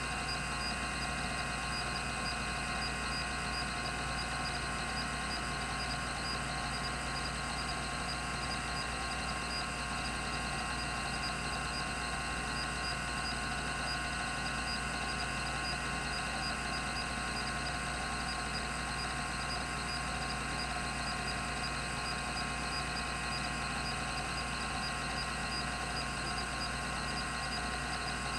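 Rodime RO352 10 MB 3.5-inch hard drive spinning at 3600 RPM, a steady hum and whine from the spindle with no seek clicks.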